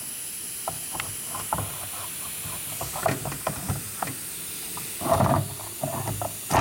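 Light clicks and taps of a worn metallic brake pad and small tools being handled on a workbench, over a steady background hiss, with a brief louder clatter and rustle about five seconds in.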